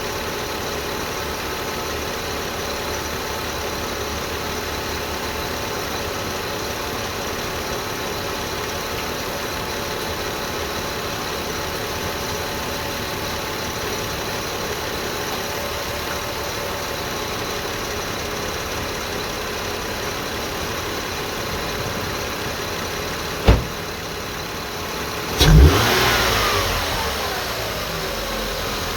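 2002 Lexus IS300's 3.0-litre straight-six idling with a steady whine, which the owner asks might be the oil pump or the alternator after a new timing belt, water pump and seals did not cure it. Near the end comes a single sharp knock, then a quick rev that falls back to idle over a couple of seconds, the whine's pitch sweeping down with it.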